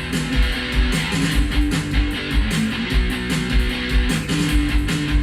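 Background music: a guitar-driven track with a steady beat.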